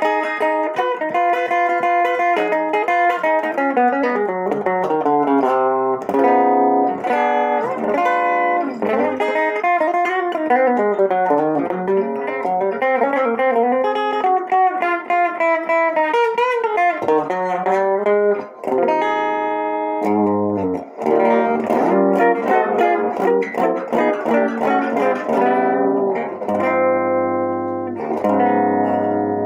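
1960 Guild T100 thinline electric guitar played with a pick on its bridge pickup through a clean amp with no reverb. It runs through single-note lines and chords, with a few short pauses between phrases.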